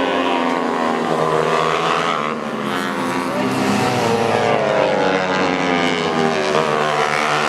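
Several tuned 150cc four-stroke underbone racing motorcycles running hard, their engines rising and falling in pitch as they rev and shift.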